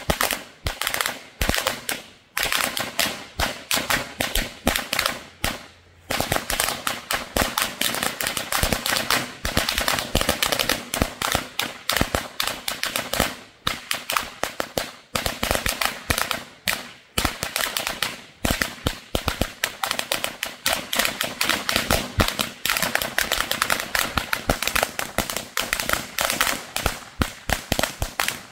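A 400-count strip of Vixen firecrackers going off in a long, rapid, unbroken string of sharp cracks, with a couple of short lulls about two and six seconds in.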